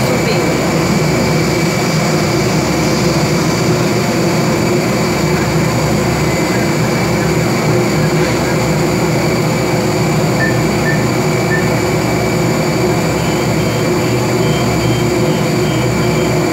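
Steady mechanical drone of an ambulift's lift drive running as its cabin is raised toward the aircraft door. There are three short high beeps about ten seconds in, and a faint quick beeping near the end.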